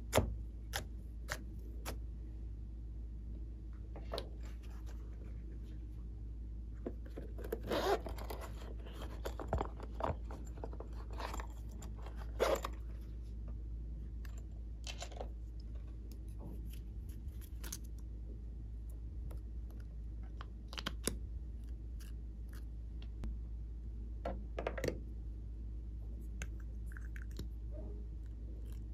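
Hands handling plastic toy cases and slime: scattered clicks, crackly rustles and scrapes, loudest in a cluster about eight to thirteen seconds in, over a steady low hum.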